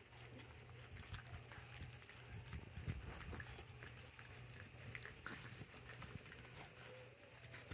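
Several puppies eating dry kibble from a stainless-steel puppy pan: faint, irregular crunching and clicking of kibble against the steel. A low steady hum runs underneath.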